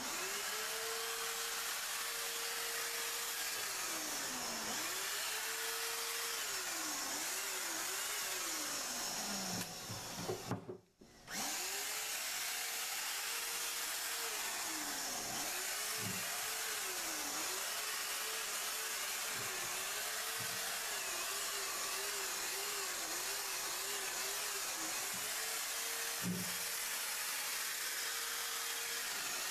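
A handheld Wagner electric paint sprayer spraying Plasti Dip. It runs with a steady rushing hiss and a motor whine that repeatedly dips and wavers in pitch. It starts up at once, cuts out for about a second some ten seconds in, then runs on.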